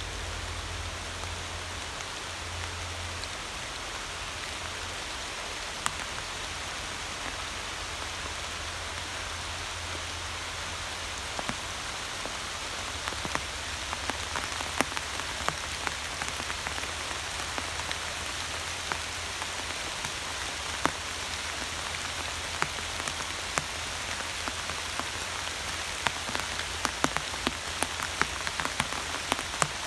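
Steady rain falling, with single drops tapping loudly close by; the taps come more often in the second half.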